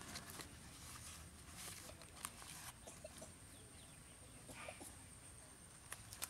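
Faint rustling and crinkling of banana leaves being folded and handled, with a few light taps and a sharper click near the end.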